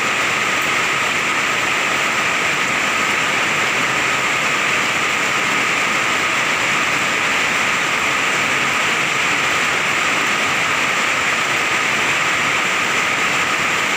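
Heavy rain pouring down in a steady, unbroken downpour.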